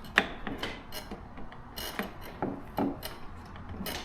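Wrench tightening a lawn mower's blade bolt snug, with a handful of separate metallic clicks and knocks scattered at uneven intervals.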